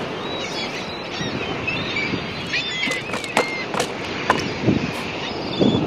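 Wind rushing over the microphone, with small birds chirping in short twittering phrases. About three seconds in come a few sharp clicks and rustles as long rubber diving fins are handled and pulled from a dry bag.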